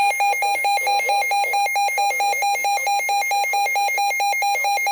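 Emergency Alert System attention tone from a broadcast alert: a loud electronic alarm tone with a fast, even warble, held unbroken.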